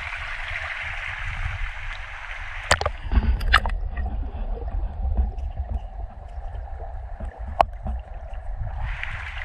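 Steady rush of running water. About three seconds in it turns muffled for several seconds, with a quick cluster of sharp clicks or knocks as it drops away and one louder click near the end, before the full rush comes back.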